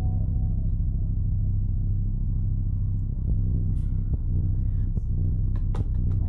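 A steady low rumble, with a few short sharp ticks and faint hisses over it in the last second or so.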